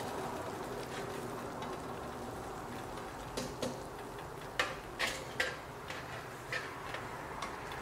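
Chopsticks lifting cooked noodles out of a pot of hot water into a stainless steel colander: a low steady hiss, and from about three seconds in a scattered run of light clicks and taps.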